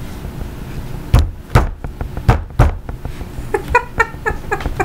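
Several sharp thumps a little over a second in, then short bursts of a woman laughing near the end.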